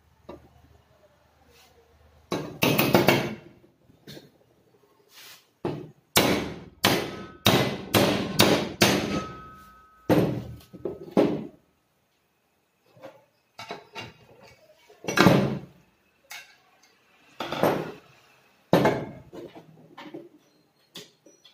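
Hammer blows on metal, tapping a bearing in a power tiller's cooling-fan housing. A quick run of about a dozen strikes comes in the middle, with a brief metallic ring, and the blows before and after it are irregular and spaced apart.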